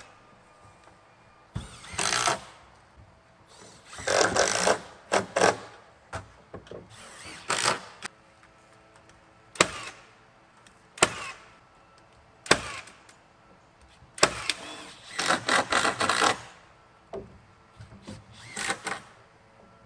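Power tool, such as a drill or driver, run in short bursts of under a second to about a second, about half a dozen times, with a few sharp single knocks between them.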